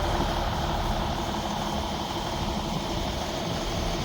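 Concrete truck engine running steadily with an even rumble.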